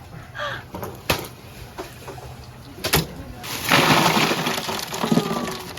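Oyster shells knocking together twice, then about two seconds of rattling shells and splashing water as oysters are handled.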